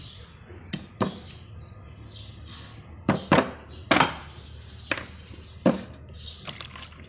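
Hand tools and metal parts clinking and knocking: about seven sharp strikes at irregular intervals, the loudest a cluster about three to four seconds in, over a low steady hum.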